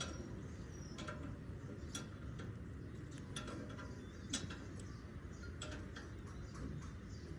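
Scattered light taps and clicks at an uneven pace, one sharper about four seconds in, over a steady low hum.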